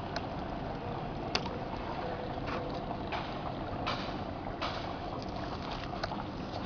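Water running from the pump outlet into the gravel grow bed of an aquaponics system: a steady rush with irregular short splashes.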